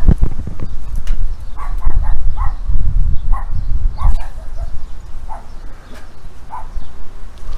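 Short animal calls, about nine of them scattered through the middle of the clip, over a steady low rumble.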